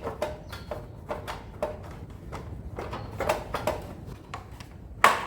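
Irregular light knocks and clicks from tools and metal parts being handled during mower maintenance, with one sharper, louder knock about five seconds in.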